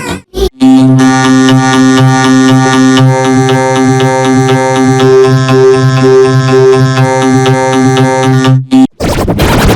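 Loud edited synthesizer music: a chord of steady held tones with a light, even beat, which cuts out sharply just before the end and gives way to a harsh, noisy distorted sound.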